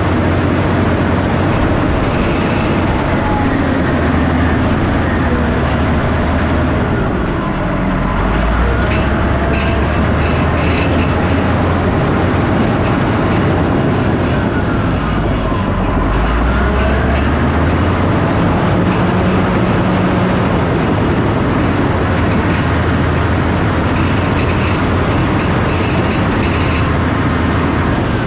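Heavy diesel earthmoving machine running hard under load while pushing topsoil, its engine pitch shifting a couple of times as it works.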